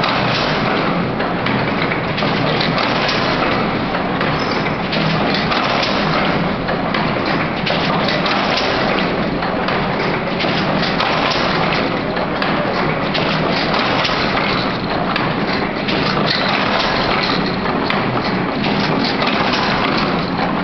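Marine Fabrics MINT double-knot fishing net making machine running, a steady, dense clatter of many quick knocks and clicks from its shuttles and knotting mechanism.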